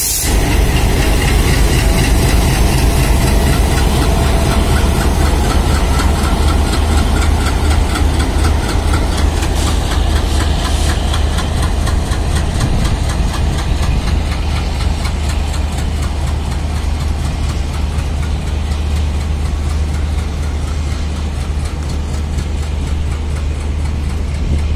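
WDG-3A diesel locomotive's ALCO 16-cylinder engine running steadily at low power during shunting, a deep even drone that eases slightly near the end as the locomotive and its sleeper coach move away.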